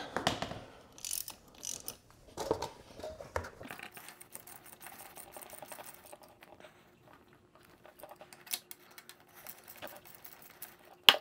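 Faint scattered clicks and rubbing as the gearbox drain plug on a Honda CR125 shifter kart engine is unscrewed by hand, with one sharp click just before the end.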